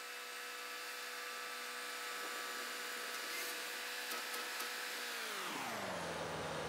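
Compact track loader's diesel engine held at high revs while its grapple lowers a log onto a sawmill bed, then dropping back toward idle about five and a half seconds in. A few faint clicks come around four seconds in.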